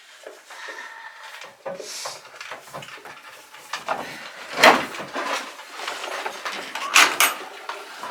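Knocking and rattling from chores in a goat barn: a run of sharp knocks, with a loud bang about halfway through and another near the end.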